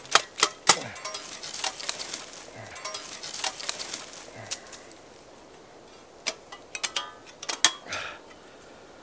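Steel panels of a folding Savotta Big Bad Stove clinking and knocking together as it is slotted into shape: a string of sharp metal clanks with a quieter gap a little past the middle.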